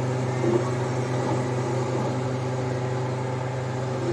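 DTF printer setup running mid-print: a steady low machine hum.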